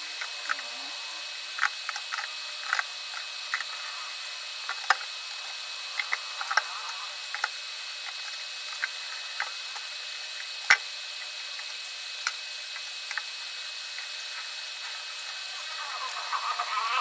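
Crabs simmering in a covered wok: a steady hiss with scattered pops and clicks of bubbling liquid under the glass lid, one sharper click about ten seconds in. A louder, warbling sound swells near the end.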